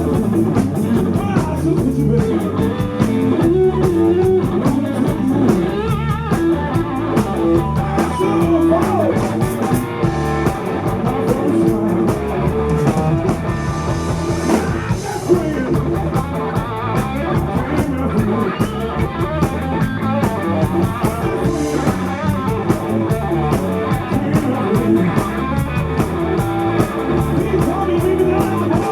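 Rock band playing live: electric guitar leading over bass and a drum kit, with a steady beat.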